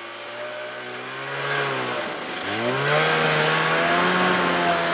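Snowmobile engine revving under load while towing a bundle of cedar logs through snow. The revs climb, drop back about two seconds in, then climb again and hold steady.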